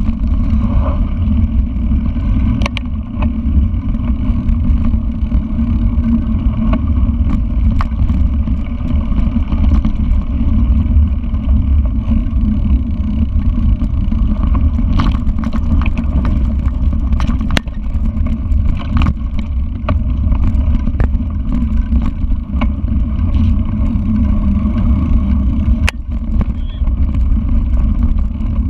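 Mountain bike riding a rough dirt trail, heard from an on-bike camera: a steady loud rumble of wind and tyre noise on the microphone, with scattered clicks and knocks from the bike rattling over bumps.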